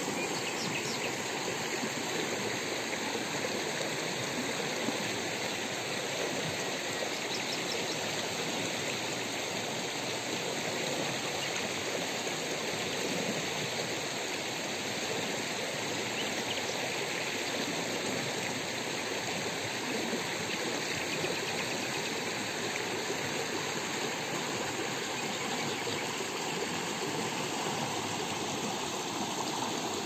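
Shallow rocky stream running over stones and small riffles: a steady, even rush of water.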